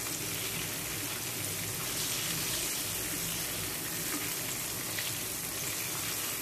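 Flour-coated fish fillets sizzling steadily as they fry in oil in a nonstick pan, with a few faint ticks along the way.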